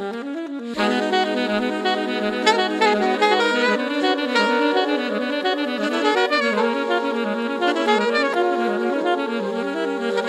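Background music with a saxophone lead over a held low note, growing fuller about a second in.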